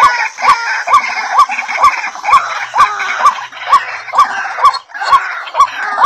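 Fowl-like bird calls repeated in a strict loop: a short upward-hooked note about twice a second, each paired with a sharp click, over a busier chirping.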